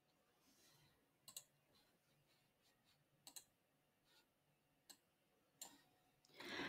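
Near silence broken by a few faint computer-mouse clicks, spaced a second or two apart.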